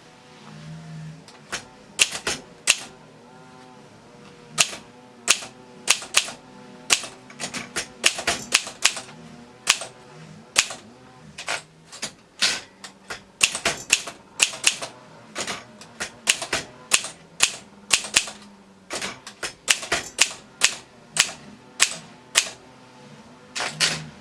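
Olympia typewriter being typed on: keys struck one after another in an uneven rhythm, sometimes in quick runs of several clicks, with pauses between.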